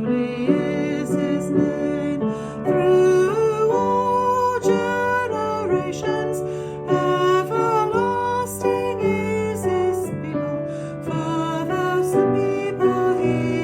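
A hymn sung by a voice with vibrato over piano accompaniment.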